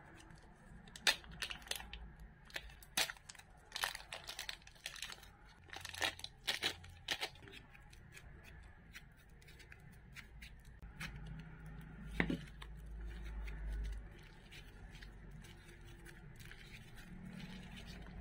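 Plastic zip-lock bag of butter slime crinkling and its seal being pulled open, a run of sharp crackles and clicks over the first seven seconds. After that, softer handling of the slime as it is pressed out and kneaded, with one more sharp click about twelve seconds in.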